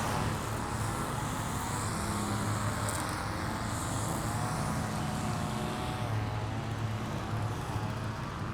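A motor vehicle engine idling steadily, with a low hum.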